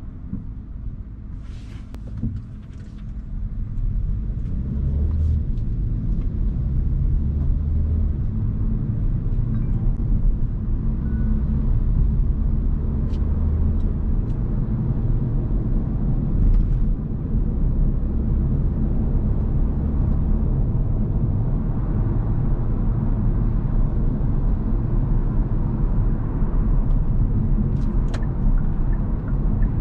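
Hyundai Kona Hybrid driving, with steady low rumble and tyre-on-road noise. It grows louder about four seconds in as the car picks up speed, then holds steady.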